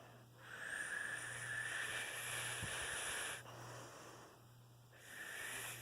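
A person making a quiet, breathy hissing noise with the mouth: one long exhale of about three seconds, then another starting near the end, with a faint high whistle in it.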